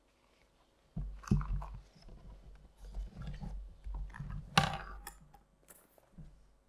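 Bumps, rustles and clicks of books and papers being gathered up at a lectern, picked up close by the microphone. The noises start about a second in, with one sharp knock a little past the middle.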